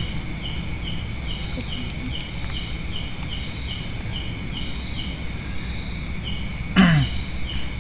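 Night chorus of crickets and other insects: a steady high-pitched trill with a pulsed chirp about three times a second. Near the end a short low human voice sound, falling in pitch, stands out briefly above it.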